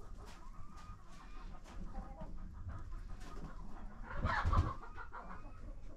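Soft clucking calls of a brooding turkey hen on a straw nest, with light rustling of the straw and a louder, noisier rustle about four seconds in.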